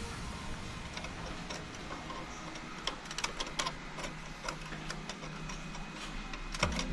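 Light, irregular plastic clicks and taps from fingers working the paper sensor lever inside an Epson L5190 printer's opened rear paper feed. The lever has come out of its proper position. The clicks are scattered and uneven, a few a second at most, over a low steady hum.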